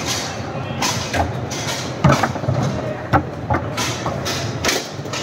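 Foosball table in play: sharp knocks of the ball against the plastic players and the table walls, and rods clacking, coming irregularly every half second to a second, the loudest about two seconds in and just after three seconds. Under them runs a steady low hum.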